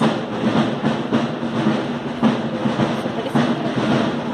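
Drums beating, a dense, continuous run of strokes with music.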